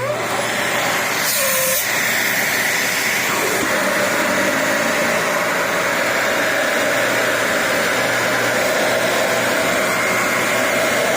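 Dyson Ball Multi Floor 2 upright vacuum cleaner switched on, its motor starting suddenly and running steadily with a high whine. A brief hiss comes about a second and a half in.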